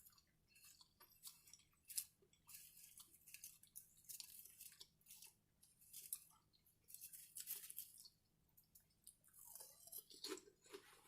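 Faint close-up chewing of a sub sandwich and potato chips: irregular soft crunches and wet mouth clicks.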